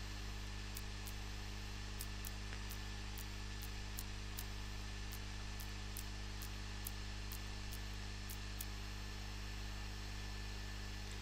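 Steady electrical hum and hiss, with faint light ticks of a knife slicing strawberries on a plastic cutting board, about two to three a second, stopping shortly before the end.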